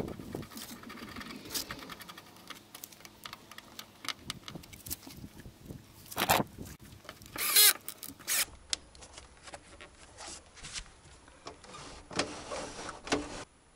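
Cordless drill-driver running in two short bursts, about six and seven and a half seconds in, driving screws that fix a plastic pull handle to a car door card. Around them, clicks and knocks of the handle and tools being handled.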